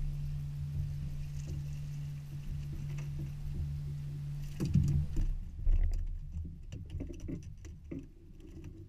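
Bow-mounted Minn Kota i-Pilot electric trolling motor humming steadily, cutting off about halfway through. A couple of louder knocks follow, then scattered light taps and ticks.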